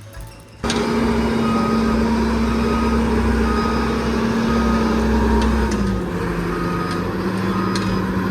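A motor vehicle's engine running steadily, cutting in suddenly near the start and dropping a little in pitch about six seconds in, with short high beeps repeating in the background.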